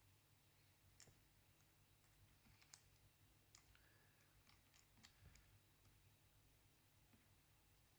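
Faint, irregular small plastic clicks from a ThinkPad X240 laptop keyboard key cap being handled and fitted, bunched together about midway.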